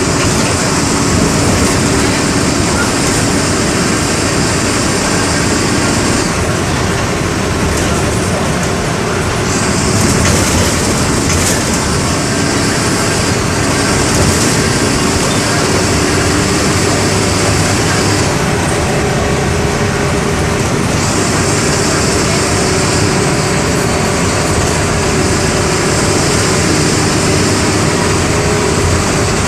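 MWM 6.12 TCE turbodiesel inline six of a Volksbus 17-230 EOD bus running steadily under way. A high hiss comes and goes over it in stretches of several seconds.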